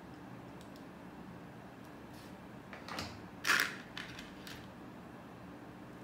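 Plastic Lego pieces clicking as they are handled, with a louder short clatter about three and a half seconds in and a few smaller clicks around it.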